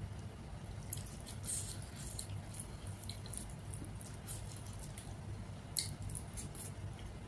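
Small wet squishing sounds and scattered soft clicks from fingers mixing rice and rajma curry on a plate, and from a mouthful being taken, with a sharper click just before six seconds. A steady low hum runs underneath.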